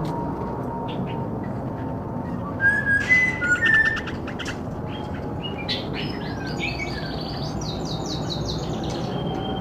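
Bulbuls chirping: a loud flurry of short, sliding calls about three seconds in, then a quick run of repeated notes, over a steady low background noise.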